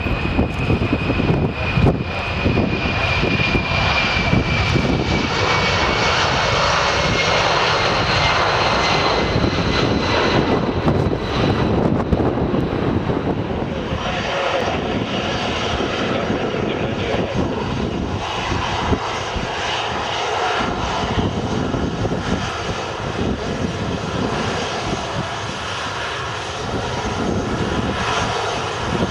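Jet roar from the four turbofan engines of a C-17 Globemaster III on the runway, with a high whine that falls in pitch over the first several seconds. From about halfway in, the quieter, steady jet engine sound of a Boeing 737 rolling along the taxiway.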